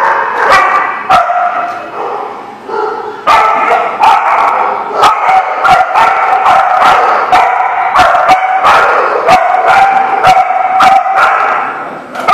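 Dogs barking and yipping in quick, overlapping barks while playing: a few barks in the first seconds, then near-continuous barking from about three seconds in.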